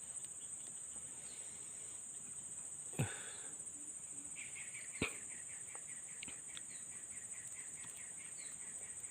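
Steady high-pitched chorus of insects such as crickets, with a fast, even run of chirps starting about four seconds in and repeating about four times a second, a call taken for a bird. Two sharp knocks sound about three and five seconds in.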